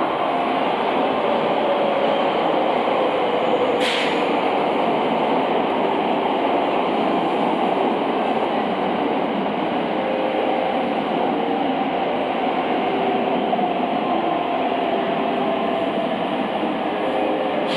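Thunderbird limited express electric train arriving along the platform: a steady rumble of wheels and running gear with a faint whine that slowly falls. One sharp hiss about four seconds in.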